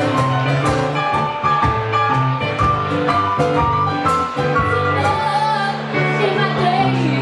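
Live blues band playing: electric keyboard with electric and acoustic guitars, and a woman singing over it in the second half.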